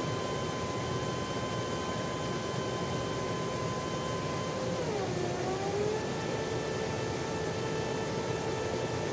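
Jet aircraft in flight: a steady rush of engine and air noise with a high whine. About five seconds in, the whine drops in pitch, then settles at a slightly lower pitch.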